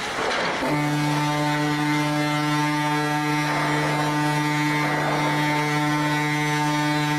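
Ship's horn sounding one long steady blast, starting just under a second in. It is a last farewell blast from a ship about to be sent for scrapping.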